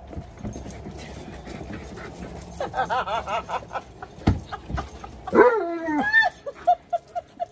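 Excited Alaskan Malamute and Siberian Husky whining and yipping in quick runs of short high cries, with one longer cry that bends in pitch in the middle: dogs greeting their owner on finding her. Two sharp knocks come between the cries.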